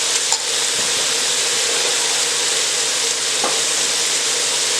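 Chicken pieces frying in hot oil with red curry paste, a steady sizzle, with a couple of light clicks.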